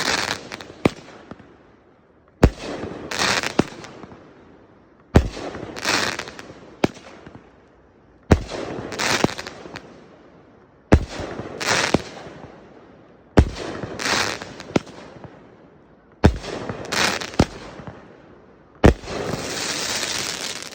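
Consumer fireworks going off in a series of shots about every two and a half seconds. Each shot is a sharp bang followed by a crackling burst that fades away. The last one, near the end, is a longer, steadier crackle.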